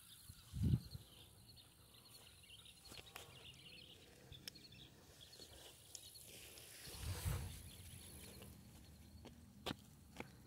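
Quiet outdoor ambience with faint bird chirps, two low thumps and a few sharp clicks near the end.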